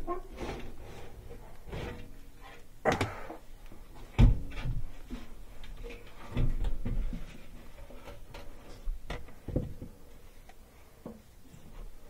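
Handling noises: a string of clunks and knocks as metal parts and tools are moved about, the loudest a heavy thud about four seconds in.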